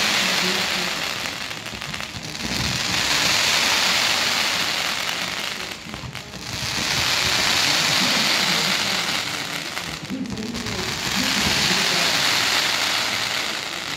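Fireworks: fan-shaped volleys of sparking comets hissing and crackling. The hiss swells and fades in waves, a new volley about every four seconds.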